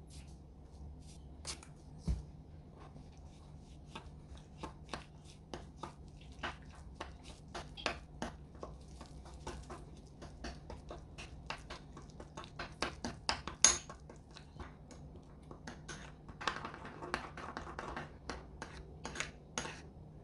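A spoon stirring a thick gochujang paste sauce in a small bowl, with many irregular light clicks and taps against the bowl and a short stretch of scraping near the end.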